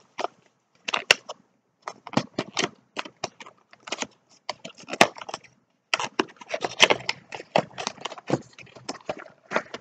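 Small cardboard product box being opened by hand: an irregular run of crackles, clicks and tearing as its sealed top and tuck flap are worked loose, getting busier about six seconds in.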